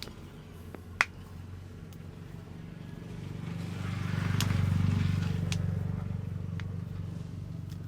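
Low engine hum of a passing vehicle that swells to its loudest near the middle and then fades, with one sharp, loud crack about a second in and a few fainter clicks after it.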